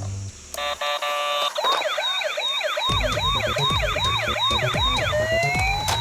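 Electronic toy police van siren: a brief burst of rapid beeps, then a fast yelping siren rising and falling two to three times a second, changing near the end into a slower rising wail. Background music with a steady beat runs under it.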